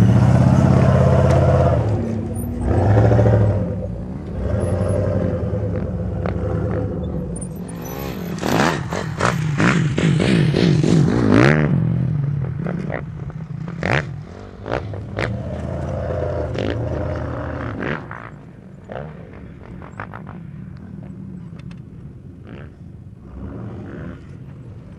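Hummer H1 engine labouring and revving as the truck climbs a steep dirt slope, with rising revs around the middle. Scattered knocks and clatter follow, and the sound grows quieter near the end.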